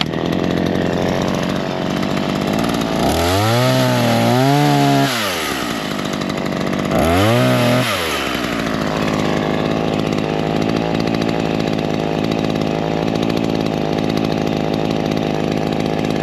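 Chainsaw running, revved up and back down twice, about three seconds in and again about seven seconds in, then running steadily at a constant speed.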